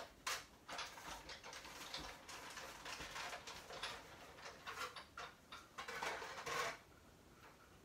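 Irregular clicking and rustling as card stock is run through a manual die-cutting machine with its cutting plates and die handled.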